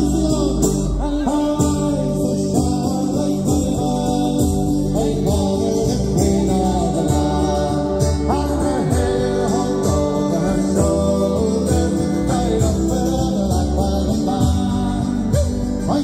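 Live folk band playing through a PA: strummed acoustic guitar, a second guitar, fiddle and tin whistle carrying the melody.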